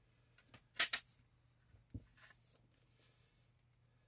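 Faint handling sounds of a plastic-cased UPS replacement battery pack being turned over in the hands: a couple of light clicks about a second in and a soft knock around two seconds.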